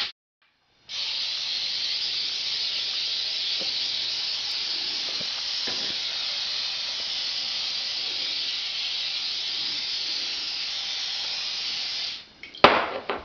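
A steady, even hiss that starts after a moment of dead silence and ends with a sharp click near the end.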